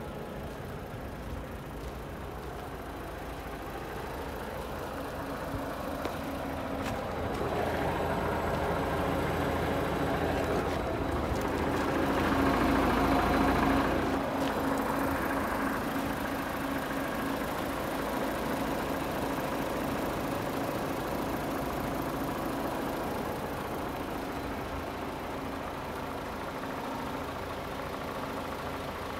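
DAF XF106 tractor unit's PACCAR MX-13 six-cylinder diesel idling steadily. It grows louder towards the middle as it is approached, peaking about halfway through, then eases off again.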